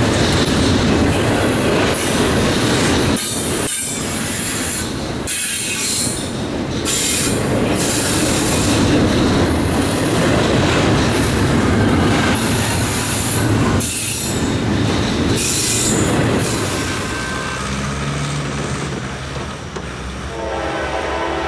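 Train rolling past with a steady rush of wheel noise and steel wheels squealing against the rails. Near the end a locomotive horn starts to sound.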